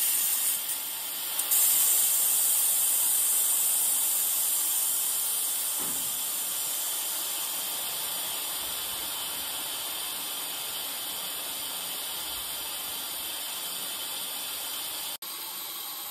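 Compressed air hissing out: a steady high hiss that slowly gets quieter, dropping abruptly near the end.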